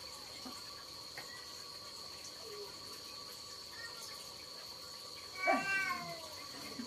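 Steady night chorus of crickets, with one short, loud pigtail macaque call about five and a half seconds in.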